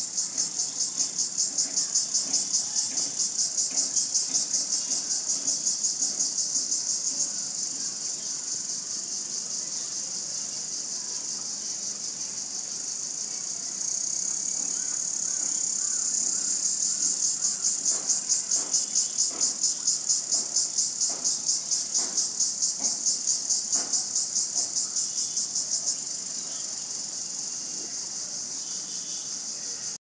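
Insect chorus: a steady, high-pitched shrill made of rapid even pulses. It eases a little and swells again a couple of times.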